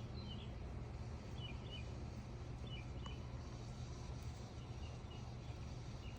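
Small birds chirping now and then, short high chirps over a steady low outdoor rumble.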